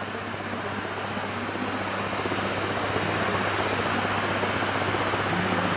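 Steady rush and splash of river water around a bathing Asian elephant, growing a little louder in the first couple of seconds and then holding.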